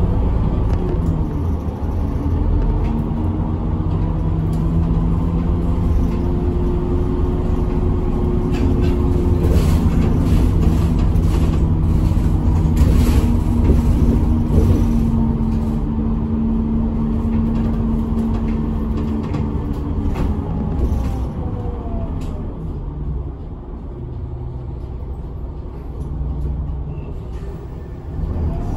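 A route bus's engine heard from inside the cabin, running on the road with a heavy low rumble. Its pitch rises and falls through gear changes, with a few knocks and rattles midway. It eases off and goes quieter about two-thirds of the way through, then picks up again near the end.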